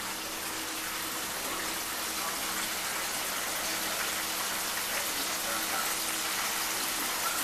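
Hot oil frying with a steady, even sizzle, and a faint low hum underneath.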